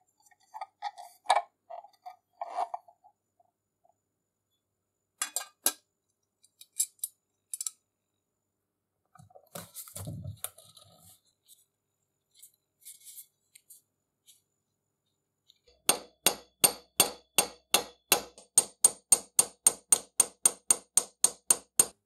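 Small metal parts clinking and being handled, then an even run of light, sharp metallic taps, about four a second, through the last quarter: a small hammer peening copper rivets into the grinder's painted steel plate.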